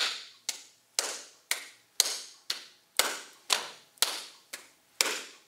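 Two people doing a partner clapping pattern: their own hand claps alternating with pats and taps on each other's hands, in a steady beat of about two strikes a second, some strikes louder than others.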